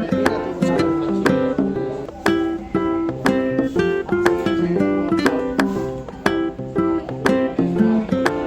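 Background music: a bright plucked-string tune, ukulele-like, with quick repeated notes and a steady beat.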